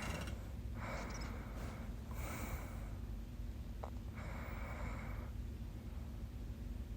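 A sleeping woman's noisy snoring breaths: three breaths of about half a second to a second each, with a quiet pause of about two seconds near the end.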